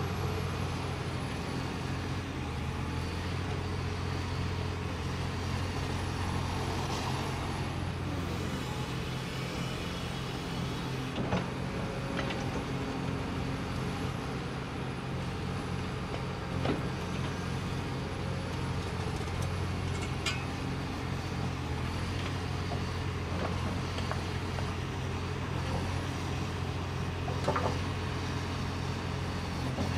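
Diesel engines of a Caterpillar 336E excavator and a Volvo A25C articulated dump truck running steadily as the excavator digs earth and loads the truck. A few sharp knocks and clanks of the bucket and dumped soil stand out.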